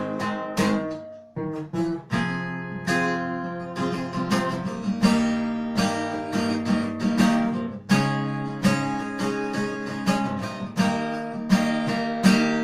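Acoustic guitar playing an instrumental interlude: strummed and plucked chords, each struck sharply and left to ring, in a steady ballad rhythm.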